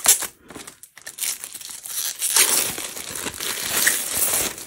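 Cardboard box and packaging of a diamond painting kit being handled, rustling and crinkling. There is a sudden loud crackle right at the start, then steady crinkling from about a second in.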